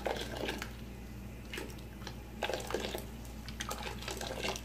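Liquid food colouring poured from a small bowl into a large steel pot of water, splashing near the start, followed by a few irregular splashes and clinks.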